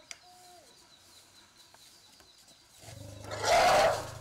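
A short, loud, rough elephant call, about half a second long, near the end, over a low steady hum that starts shortly before it.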